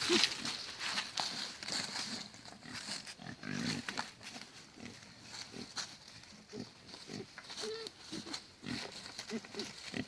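Pigs grunting, in short low grunts spread through, over light rustling and clicking.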